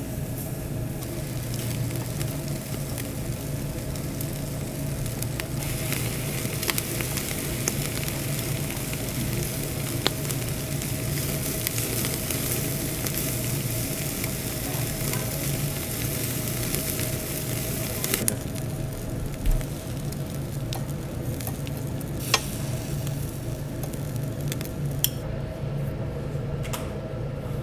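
Chicken sizzling as it cooks over charcoal, with a steady hiss that is strongest in the middle and eases off later. A steady low hum runs underneath, and a few sharp clicks sound now and then.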